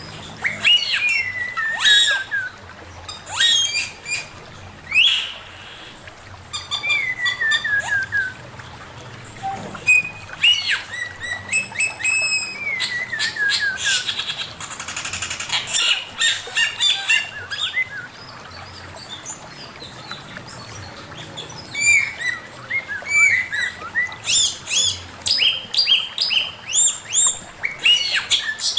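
Male poksay mandarin (a laughingthrush) singing. Loud whistled phrases slide down in pitch, mixed with quick runs of high chirping notes, with a rougher, harsher stretch about halfway through.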